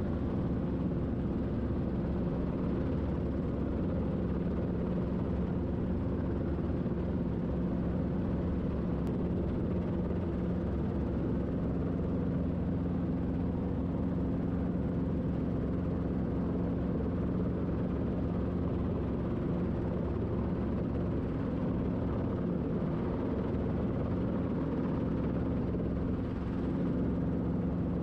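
Robinson R22 Beta II helicopter in a hover, heard from inside the cockpit: the four-cylinder Lycoming piston engine and rotors give a steady drone with a constant low hum.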